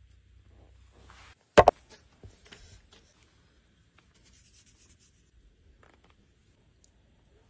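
Hands handling food on a wooden cutting board: a soft rub, then two sharp knocks about a second and a half in and a few lighter taps. Around four to five seconds in, a fine rustle of spices being sprinkled over raw minced meat.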